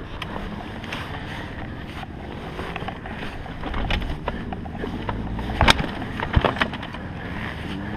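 Kawasaki KX250F motocross bike's four-stroke single-cylinder engine running as the bike rolls along a rough dirt track, with scattered knocks and rattles from the bike over the ground; the sharpest knock comes about two-thirds of the way through.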